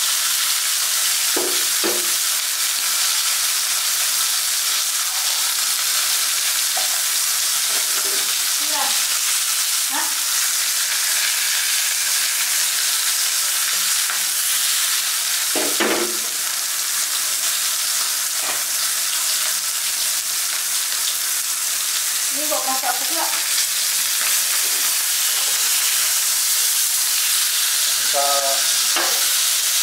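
Torpedo scad (chencaru) frying in hot oil in a nonstick pan, a steady sizzle throughout. A steel spatula makes a few brief squeaks and scrapes against the fish and pan, and one short knock about halfway through.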